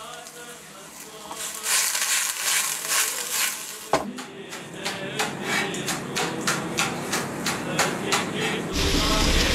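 Kitchen knife chopping green onions on a plastic cutting board: a steady run of sharp chops, about three a second.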